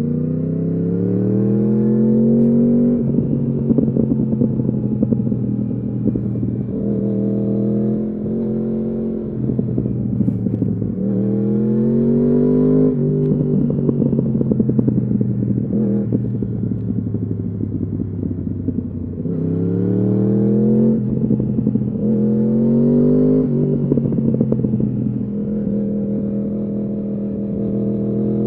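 2015 Yamaha R1's crossplane inline-four through an Akrapovič exhaust, accelerating in about five pulls. Its pitch climbs and drops back at quick upshifts, with crackling in the stretches between pulls.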